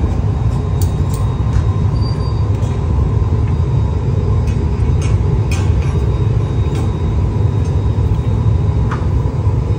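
Steady low rumble of a glassblowing hot shop, the lit glory holes and their blowers running without a break, with a few light metal clicks of tools scattered through.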